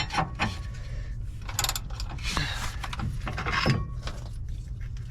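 Hand tools on the upper mounting fastener of a motorhome front shock absorber: scattered metal clicks and scrapes, with two short rasping bursts about a second and a half in and again near two and a half seconds, over a steady low hum.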